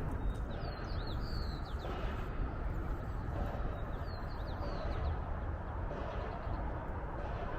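Steady low outdoor rumble with a small bird chirping in short, falling notes, once about half a second in and again about four seconds in.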